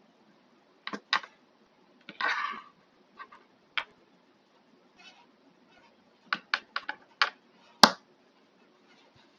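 Small plastic parts of a hair trimmer being handled during disassembly: a run of sharp clicks and taps with a short scraping rattle, with a quick cluster of clicks and a loudest single snap near the end.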